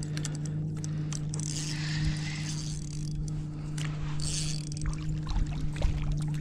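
Water splashing and sloshing beside a kayak as a hooked fish is fought toward a landing net, in two hissy rushes, with scattered clicks and a steady low hum underneath.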